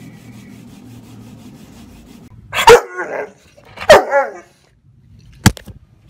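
Rottweiler barking twice, two loud barks about a second and a quarter apart. A sharp click follows near the end.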